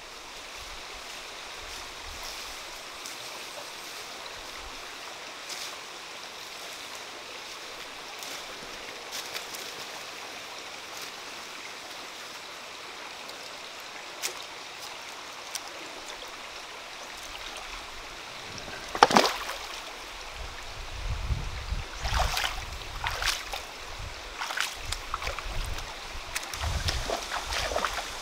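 Steady rush of a shallow, rocky forest stream. About two-thirds of the way in comes a sharp knock, then irregular knocks and low thumps of someone stepping over stones and into the water.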